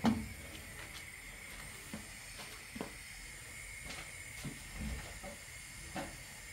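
A frying pan of blended vegetable cream sauce set down on a lit gas burner with a clunk at the start. Then a faint steady hiss with a few small pops as the sauce begins to heat.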